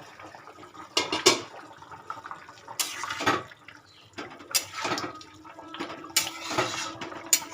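Cooking sounds at a pan of curry with water in it: two sharp metal clinks about a second in, then several short bursts of liquid splashing and bubbling, a second or two apart.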